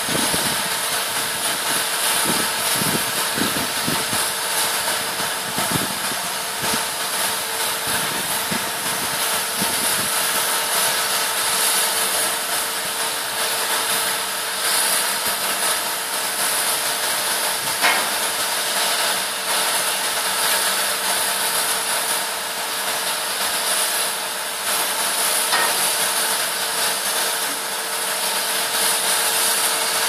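Demolition machinery running steadily: a constant engine hum with a steady tone and a broad hiss over it.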